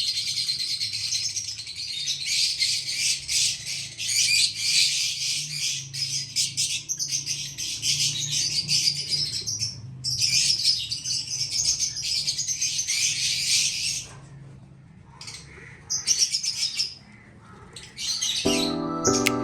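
A flock of caged lovebirds chattering in dense, high-pitched chirps and squawks, thinning out twice briefly in the second half. Near the end a piece of music comes in over them.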